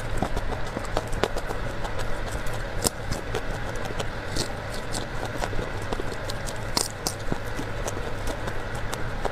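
Close-miked chewing of broccoli florets: irregular crisp crunches and mouth clicks over a steady low rumble.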